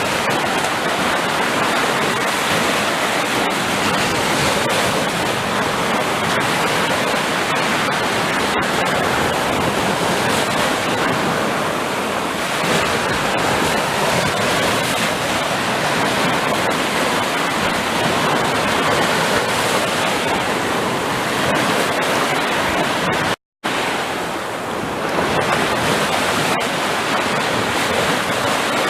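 Ocean surf: a steady rush of breaking waves, cut by a split-second silence a little over twenty seconds in.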